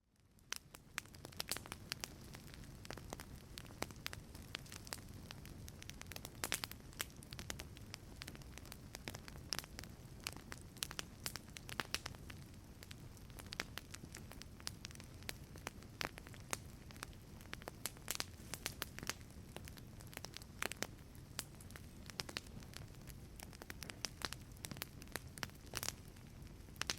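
Wood fire crackling in a fireplace: a steady low rumble of flames with frequent, irregular sharp pops and snaps. It fades in from silence over the first second.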